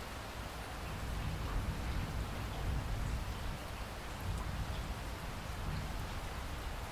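Steady rainfall: an even hiss of rain with a low rumble underneath and a few distinct drops.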